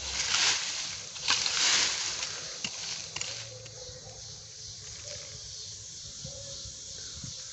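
A small hoe chopping into leaf-littered soil, a few crunching strikes in the first two seconds, followed by quieter scraping of loose dirt by hand.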